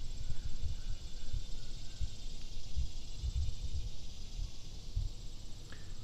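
Wind buffeting the microphone in low, uneven gusts, over a steady high-pitched drone of insects.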